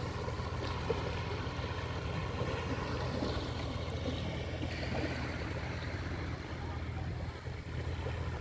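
Sea waves washing steadily onto a shore, with faint distant voices of people playing in the water, over a constant low rumble.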